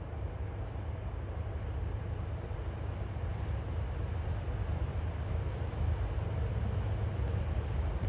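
Diesel locomotive TR11 approaching at the head of a loaded cement train: a low, steady engine rumble that grows slowly louder.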